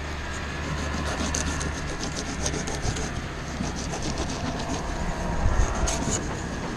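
Fillet knife slicing along a scaled fish on a plastic fillet table: a scratchy crackle of the blade through scales and bones, with sharp ticks here and there. A steady low rumble runs underneath.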